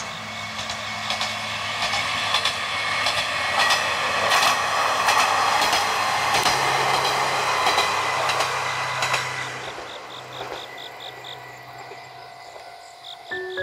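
Kanto Railway KiHa 2200-series diesel railcar passing by: its engine and the clicking of its wheels over the rail joints grow louder, peak in the middle, then fade away over the last few seconds.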